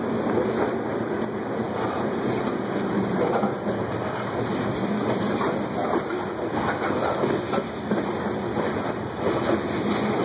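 Freight train of open-top hopper cars rolling past: a steady rumble of steel wheels on rail, with faint scattered clicks.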